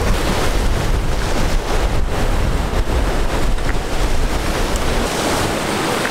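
Surf breaking against the jetty's rocks, with wind buffeting the microphone in a heavy low rumble that eases a little near the end.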